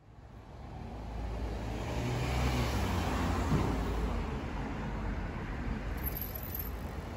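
A car driving past on a city street, its engine and tyre noise swelling over the first two seconds, over steady road traffic noise.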